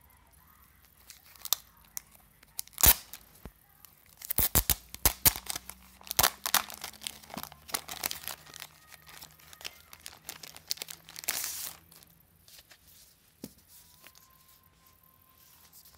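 Clear plastic wrapping being picked at, torn and peeled off a packaged postcard set: a run of sharp crackles and rustles, the loudest about three seconds in, thinning out and stopping after about twelve seconds.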